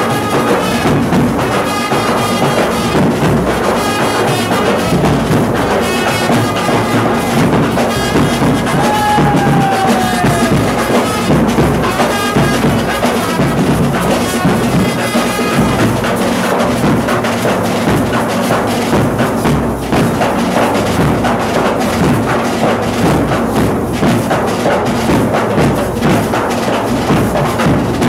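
Live festival band music: a clarinet playing a melody over a band of drums, a large bass drum and snare-type drums beating a continuous dance rhythm.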